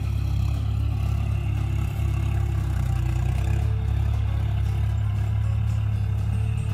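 John Deere 5045D tractor's three-cylinder diesel engine running steadily under load while pulling a cultivator, a continuous deep rumble.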